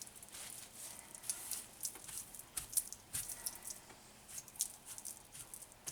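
A towel wiping spilled batter from around a filled muffin tin: soft irregular rubbing with small clicks and taps.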